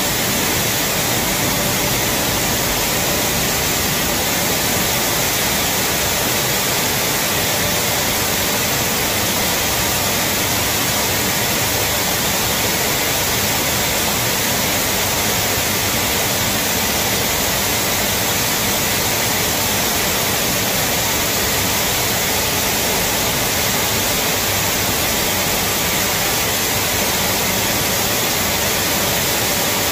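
Corn milling plant machinery running: a steady, even rushing noise with a faint hum.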